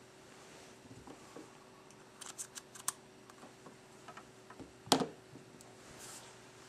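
Faint clicks and taps of a SIM card being handled and fitted into a first-generation iPhone: a quick run of sharp clicks two to three seconds in, then one louder knock just before five seconds as the phone is set back down on the wooden desk.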